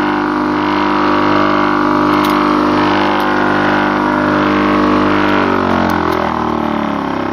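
Motor of a homemade wooden corn sheller running steadily, then winding down with falling pitch from about five and a half seconds in, as the machine is switched off and coasts to a stop.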